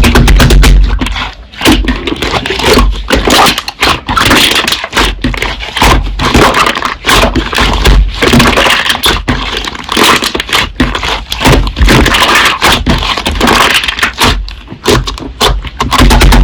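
Slime being squeezed and pressed by hand, with dense crackling and popping clicks.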